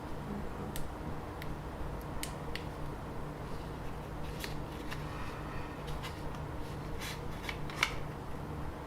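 A caliper sliding and being set against a small laptop's case: scattered light clicks and scrapes at irregular moments, the sharpest near the end, over a faint steady hum.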